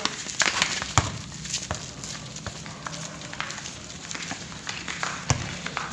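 Scattered sharp knocks and taps of a basketball game on an outdoor concrete court, ball bounces and footfalls at irregular spacing, over a steady low hum.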